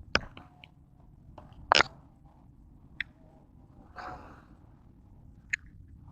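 A few scattered sharp clicks and short rustles over a quiet background, the loudest a brief burst just under two seconds in.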